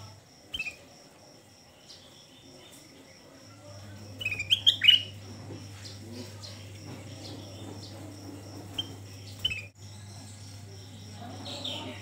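Ruby-throated bulbul (kutilang emas) calling: short rising whistled chirps, a quick run of loud notes about four seconds in, a few single chirps later and another run near the end.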